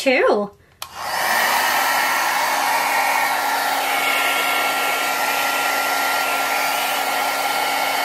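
A compact 1200 W LURA travel hair dryer is switched on with a click just under a second in. It then runs steadily on its second, hotter setting: a loud rush of air with a low steady hum and a faint high whine from the fan motor.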